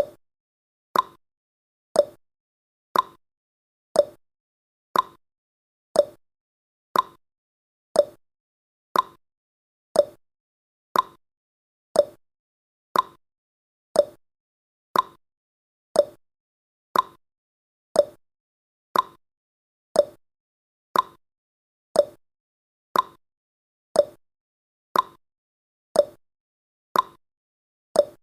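Countdown timer's ticking sound effect: one short, sharp tick every second, with silence between the ticks.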